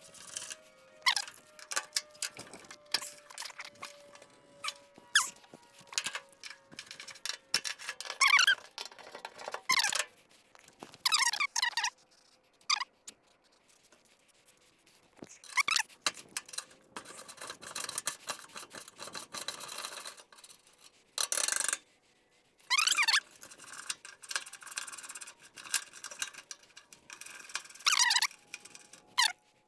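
Short, high-pitched metal squeaks, wavering in pitch, come again and again in irregular bunches with pauses between, as parts of an old truck's front end are worked loose.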